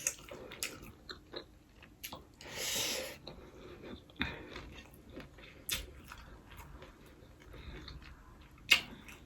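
Close-up chewing of fried rice, with small wet mouth clicks and smacks, a short hiss about two and a half seconds in, and a sharper click near the end.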